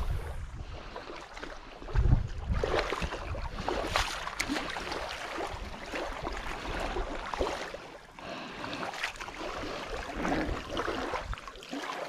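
Lake water lapping and splashing at the shoreline, a steady wash broken by many small irregular splashes, with a brief low rumble of wind or handling on the microphone about two seconds in.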